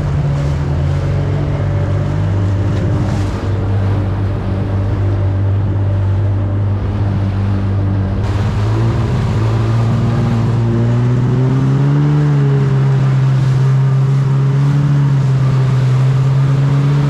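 Jet ski engine running under way with water rushing past the hull. The engine note dips slightly about two seconds in, climbs over a few seconds near the middle, then holds steady.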